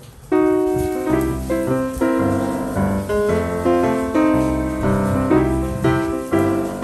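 Background piano music, a tune of struck notes over a bass line, about two notes a second, starting a moment in.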